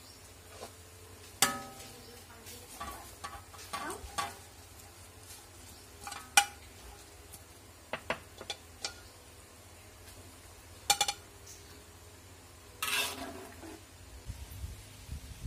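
Metal spatula clinking and scraping against a steel wok while stirring a simmering broth with vegetables. Sharp separate clinks, the loudest about one and a half and six and a half seconds in, a quick pair near eleven seconds, and a longer scrape near the end.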